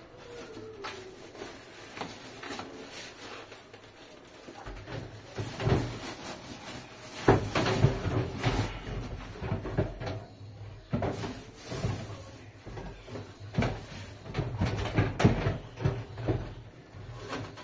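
Things being handled and moved about on shelves: irregular clunks, knocks and rustling of plastic and cardboard, quieter for the first few seconds and busier from about five seconds in.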